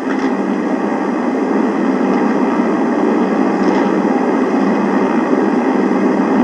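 Steady rushing noise with no speech, building slightly over the first second and then holding level.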